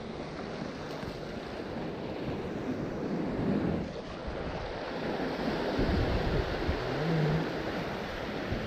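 Ocean surf washing steadily, with gusts of wind buffeting the microphone in the second half.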